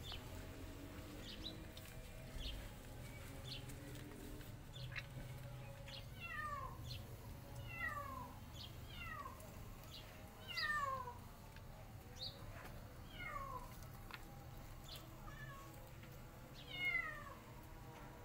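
Kittens meowing again and again: short, high mews that fall in pitch, starting about six seconds in and coming roughly once a second.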